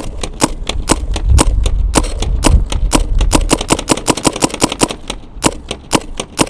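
Dye M3s spool-valve paintball marker firing a rapid string of shots, about six a second, on a nearly empty high-pressure air tank. The air is running out, so velocity is dropping.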